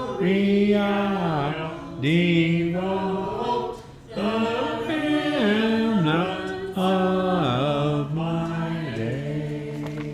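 A small congregation singing the last line of a hymn without instruments, ending on a long held note that fades away near the end.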